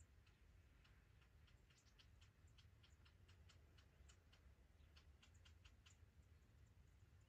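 Near silence: faint, irregular high clicks, several a second, over a low hum.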